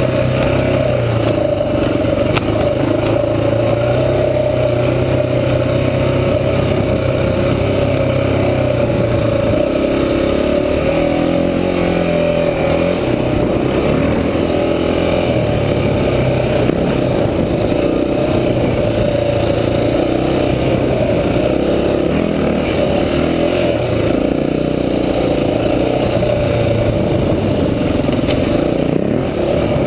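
Honda XR400 dirt bike's single-cylinder four-stroke engine running under way on a dirt trail, heard from a handlebar-mounted camera; the engine note steps up and down with the throttle.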